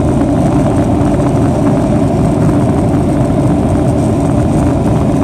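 Boeing 737-800's jet engines running at low power, a steady rumble with a faint high whine.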